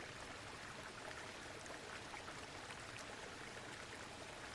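Running water, a steady low rushing hiss with small faint splashes through it.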